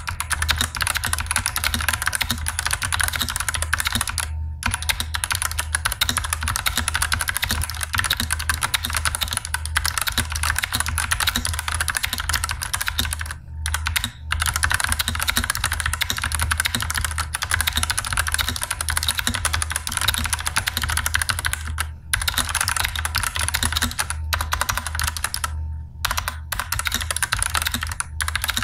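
Typing test on a Digital Alliance Meca 6X Plus 65% mechanical keyboard: continuous fast keystrokes with a few short pauses, over a low hum. Its stabilizers are lubed but still rattle.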